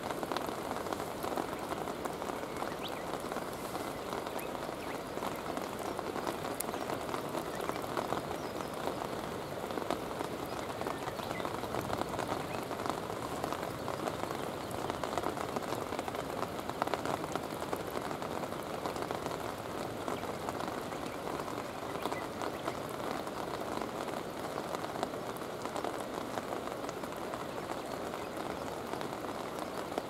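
Steady rain falling on stones and the river's surface: an even hiss of many fine drops that does not change.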